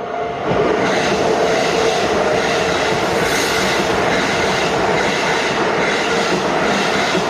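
Keisei Main Line electric train passing over the level crossing: a loud, steady rush of wheels on rails that sets in about half a second in.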